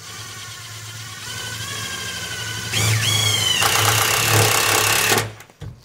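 A cordless drill's motor running with a whine that rises in pitch and grows louder about three seconds in, holds steady, then stops near the end.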